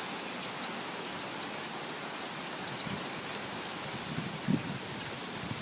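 Steady hiss of heavy hurricane rain falling, with a few low gusts of wind buffeting the microphone near the end.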